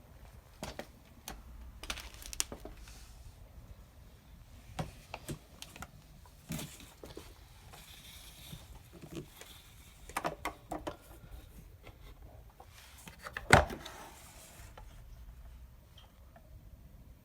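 Handling noise from a vacuum cleaner: scattered clicks and knocks as it is moved or its parts are fitted, with one louder knock about thirteen seconds in. The motor is not running.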